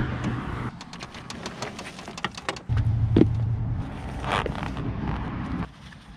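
A low engine-like hum that cuts in and out, with a run of sharp clicks and scraping noises in between.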